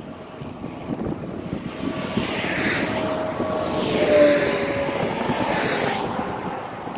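A vehicle passing close by: its noise swells to a peak about four seconds in and then fades, its engine tone dropping in pitch as it goes past.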